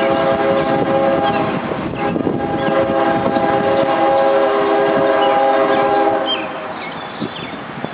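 CSX freight locomotive's air horn sounding over the rumble of the train: a blast of about two seconds, then a longer blast that stops about six seconds in. Birds chirp faintly near the end.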